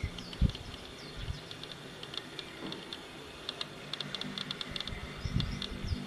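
Insects chirping in short, rapid pulses, with a few brief descending bird calls and occasional low thumps, the loudest about half a second in.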